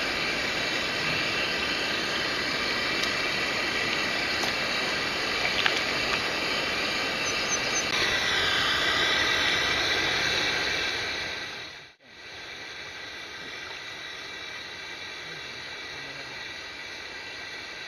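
Steady rush of a mountain stream's flowing water. About twelve seconds in it cuts out for an instant and comes back quieter.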